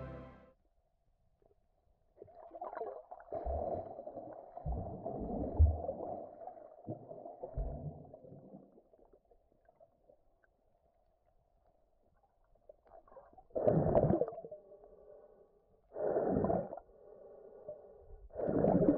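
Muffled underwater sounds from a camera held below shallow seawater: irregular gurgling and sloshing of water with a few dull knocks as a hand digs in the sand, then three short louder bursts of churning water in the last few seconds.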